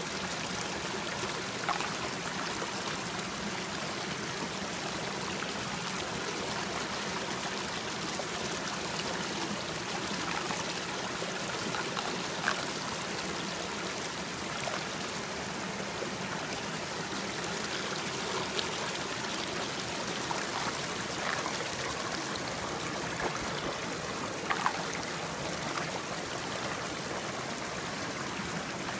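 Small rocky creek running over boulders into a swirling pool: a steady rush of flowing water, with a few brief plinks now and then.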